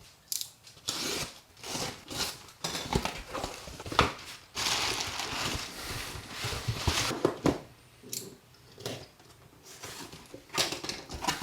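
A shipping package being opened by hand: tape and cardboard tearing, with packaging rustling and crinkling, broken by scattered sharp clicks and knocks.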